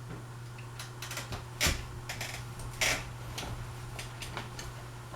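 Harbor Breeze Pulsar ceiling fan running with a steady low motor hum and irregular sharp clicks and ticks over it, two of them louder, less than two seconds in and about three seconds in.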